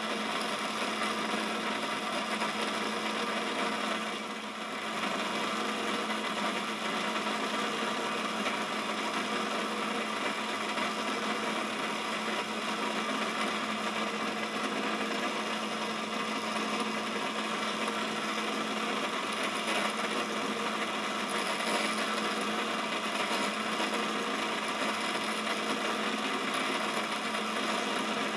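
Quorn tool and cutter grinder running steadily, its cup wheel grinding the flute of a high-speed steel end mill being resharpened. The sound dips slightly for a moment about four seconds in.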